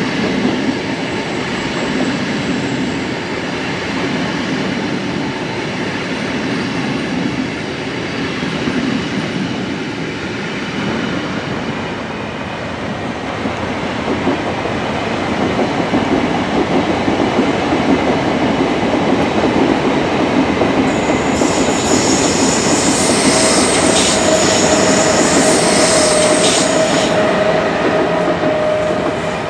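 A real train running on rails, a steady rolling rumble of wheels on track. About two-thirds of the way in, high-pitched wheel squeal sets in for several seconds while the train is at its loudest.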